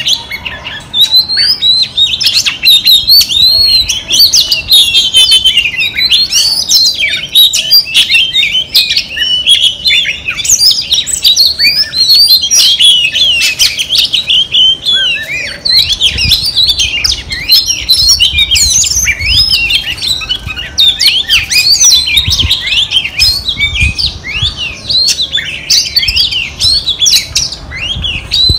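Female oriental magpie-robin singing a long, unbroken run of varied whistles, chirps and trills, the song keepers use to lure a male into singing.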